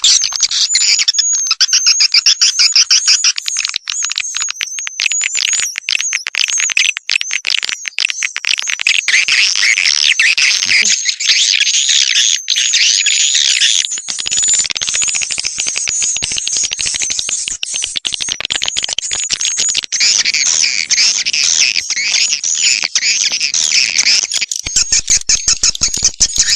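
Swiftlet call-sound recording: many swiftlets twittering in a dense, unbroken stream of rapid high chirps. This is the kind of call played from a swiftlet house to lure wild swiftlets in to roost and nest.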